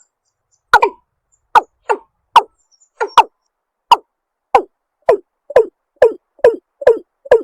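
Watercock (cúm núm) calling: a series of short, hollow clucks, each dropping in pitch, about one and a half a second and coming faster toward the end.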